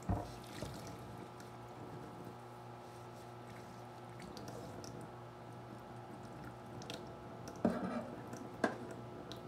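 Thin stream of water running from a kitchen faucet into the sink, with a thump at the start and two louder knocks near the end.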